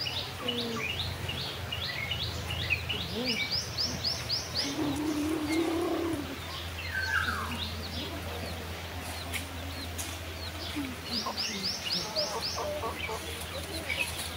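Birds chirping in quick runs of short falling notes, about three or four a second, with lower clucking calls of chickens in between, over a steady low hum.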